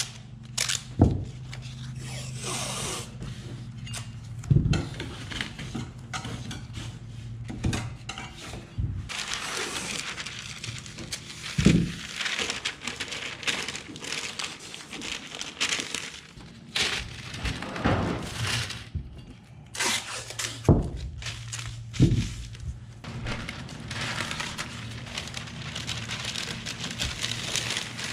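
Green painter's tape being pulled off the roll and brown masking paper crinkling and rustling as it is laid and pressed down, with scattered sharp knocks, over a steady low hum.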